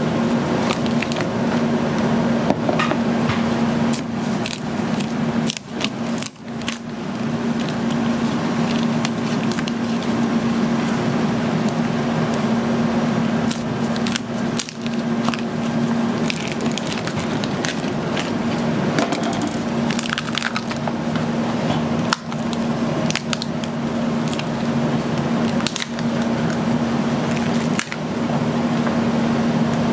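A large knife cutting and cracking through a lobster's shell on a cutting board, with scattered sharp cracks and knocks, over a steady low kitchen hum.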